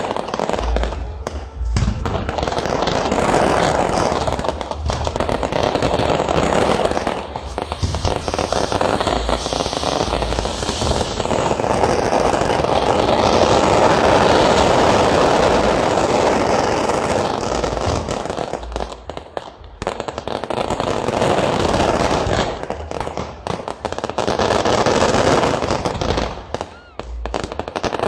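Castillo fireworks tower going off: a dense, continuous hissing and crackling of spark fountains, with scattered sharp bangs. It eases off briefly twice in the last third.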